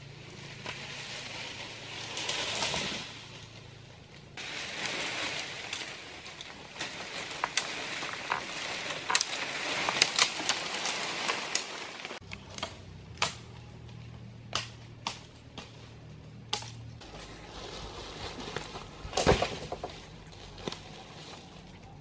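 Dry leaf litter rustling and crackling as a person moves and works on the forest floor, with many sharp snaps of twigs and stems. The rustling is densest in the first half, then thins to occasional snaps.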